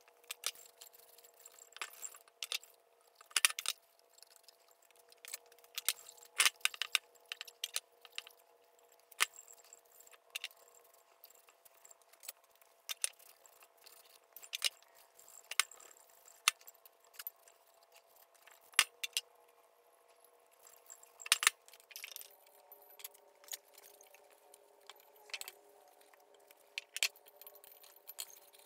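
Irregular sharp clicks, clinks and knocks as a bare cast-iron drill press head is handled, turned over and rubbed down with a rag on a wooden bench, over a faint steady hum.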